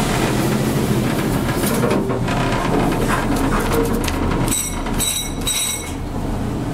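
Steady low machinery rumble and hum inside an elevator car aboard a ferry, with three short high-pitched beeps a little past halfway through.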